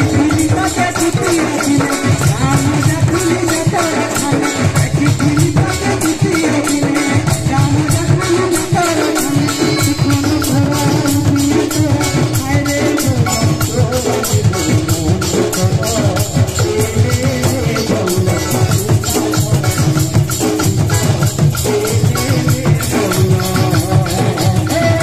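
Live Sambalpuri folk song: a fast, steady percussion rhythm with shakers, and a male voice singing the melody over it.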